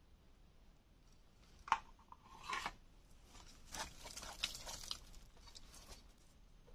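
A machete digging into leaf-littered soil: one sharp knock a little under two seconds in, then scraping and rustling of dry leaves and earth being cleared by hand, in short bursts.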